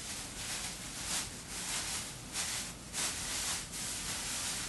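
Rustling and scraping from targets and foam blocks being handled and arranged in a target box, in a string of short hissy bursts.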